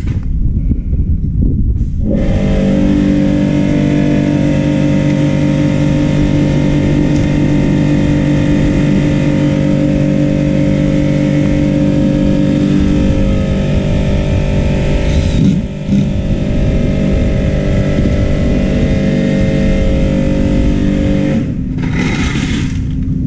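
A motor runs at a steady speed with an even hum, starting about two seconds in and stopping shortly before the end, briefly dipping partway through, over a constant low rumble.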